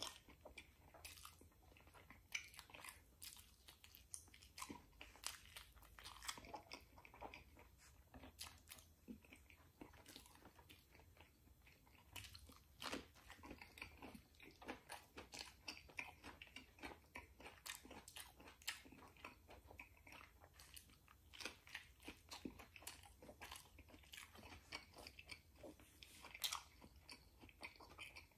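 Close-miked chewing of rotisserie chicken: wet mouth sounds with many irregular sharp clicks and smacks.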